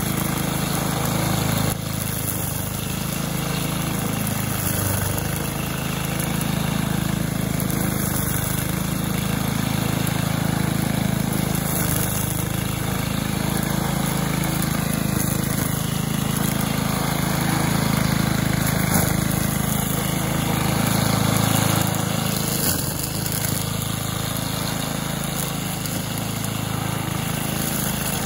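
Cub Cadet WST 100 wheeled string trimmer's 140cc single-cylinder four-stroke engine running steadily, a little louder for a few seconds past the middle.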